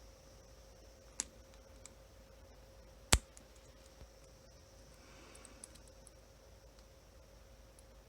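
Lock picking in an OnGuard cable lock: scattered clicks of the pick and tension wrench working the pin-tumbler cylinder, with one sharp, loud click about three seconds in.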